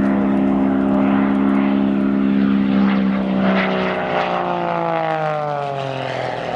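Extra 330 SC aerobatic race plane's piston engine and propeller running at a steady, loud drone. From about halfway through, the pitch falls away as the plane passes by.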